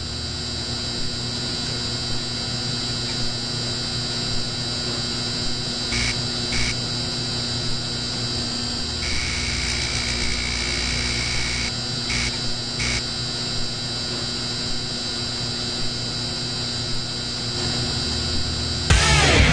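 Steady electrical buzz of a neon sign, with a few brief crackling surges as the tubes flicker, twice about six seconds in and again around twelve to thirteen seconds.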